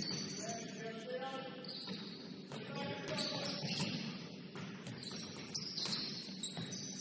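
Basketball shoes squeaking on a gym court in short high squeals, over a murmur of players' voices, with a couple of knocks near the end.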